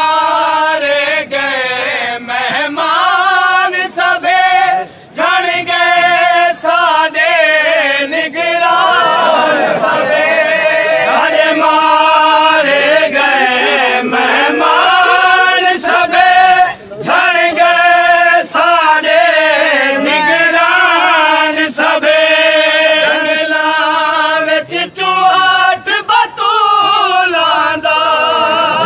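A Saraiki noha, a Shia mourning elegy, chanted by male voices in a continuous melodic recitation, with brief breaks between phrases.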